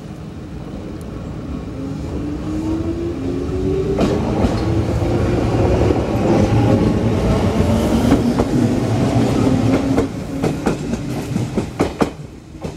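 Enshu Railway 1000 series electric train pulling away and passing close by. Its motors whine, rising in pitch as it speeds up, and grow louder to a peak in the middle. Near the end comes a quick run of wheel clacks over the track as it moves off.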